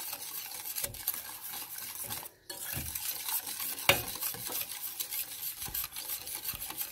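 A wire whisk stirring a milk, sugar, starch and flour mixture in a metal saucepan over the heat, its wires scraping and clicking against the pot, as a pastry cream cooks. The sound briefly drops out about two and a half seconds in.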